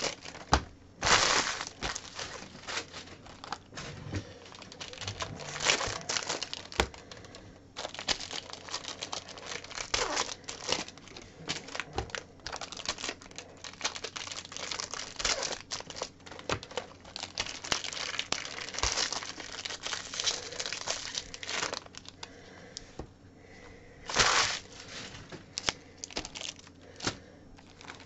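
Plastic and foil wrapping on trading card boxes and packs crinkling and tearing as they are handled and opened, in irregular bursts.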